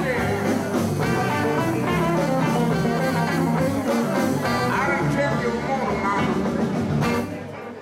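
Live blues band playing: electric guitar, bass guitar, drums and keyboard, with the singer's voice over them. The music thins out and drops in level near the end.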